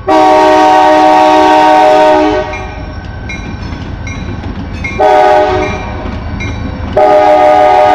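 Diesel locomotive air horn on a WSOR freight sounding a several-note chord for a road crossing: a long blast, a short one about five seconds in, then another long blast near the end. The locomotives' low engine rumble runs underneath.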